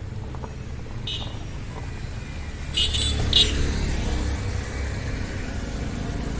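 Roadside traffic: motorcycles and other vehicles passing with a steady low engine and tyre rumble. Two short, sharp high-pitched sounds come about three seconds in and are the loudest part.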